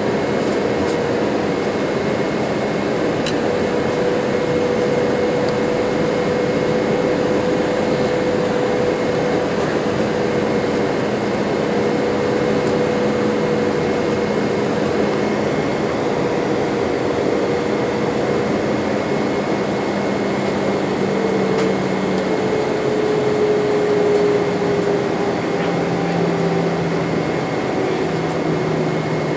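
Steady cabin noise inside an Airbus A318 airliner heard from a window seat beside the wing: engine drone and airflow hiss with a low hum and a higher whine. The hum steps lower in pitch a few times in the last third, as the engines are throttled back on the approach.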